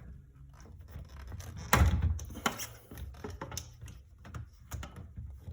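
Knocks and clicks from working a broken clip stub in a vinyl shutter louver with pliers: one loud knock about two seconds in, then scattered lighter clicks and taps.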